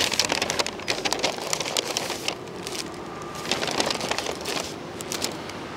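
Paper takeaway bags rustling and crinkling as hands rummage in them to unpack food. There is a busy first spell of crackling, then a second one starting about three and a half seconds in.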